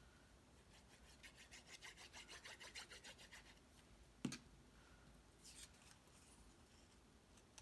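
Quick rubbing strokes across cardstock, about five a second for two to three seconds, then a single sharp tap and a softer brush of paper.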